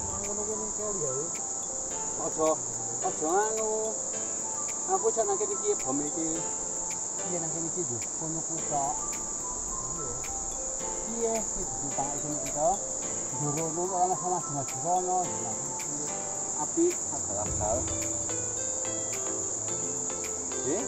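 Insects droning continuously at a high, steady pitch, with softer wavering sounds lower in pitch coming and going.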